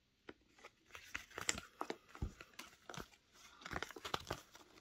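Glossy card shoe tag being handled and turned over in the fingers: a faint, irregular run of crinkles, scratches and small clicks.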